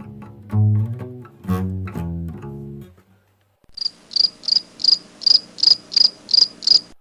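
Background music with plucked bass and guitar notes that ends about three seconds in. Then a cricket chirps in an even series, about three short high chirps a second, which cuts off suddenly at the end.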